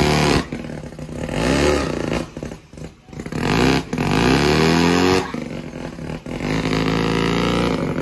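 Van engine being revved in repeated bursts, the pitch climbing on each rev and then cutting off abruptly, then held at a steady higher speed near the end, while it is being tuned from a laptop.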